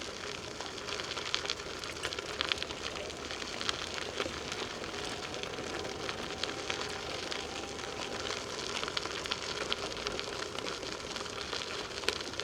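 Bicycle tyres rolling along a trail: a steady crackling hiss with many small ticks.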